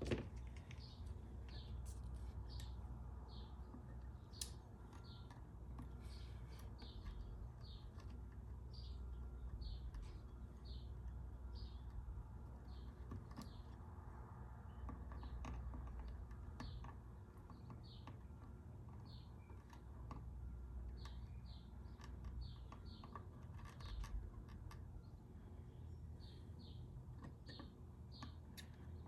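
Faint, short high-pitched chirps repeating about once or twice a second over a low steady hum, with occasional light clicks from a soldering iron working the joystick pins on a controller circuit board.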